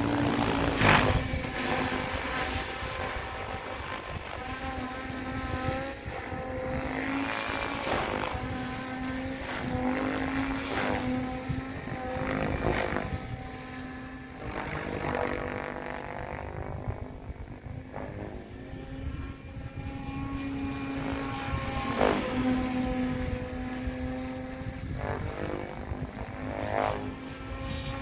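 Radio-controlled model helicopter in flight: a steady whine from the rotor and motor, broken every second or two by loud whooshes from the blades as it manoeuvres. About halfway through its pitch glides down as it passes.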